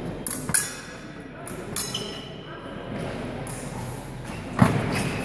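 Épée blades clinking against each other a few times, some strikes ringing briefly, with a heavy thud of a foot stamping on the piste near the end; chatter in the hall behind.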